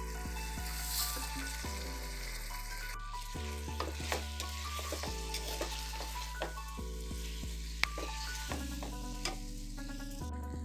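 Sliced potatoes and onions frying in hot oil with a steady sizzle, and a spatula clicking and scraping against the pan as they are stirred, with the sharpest knock near the end.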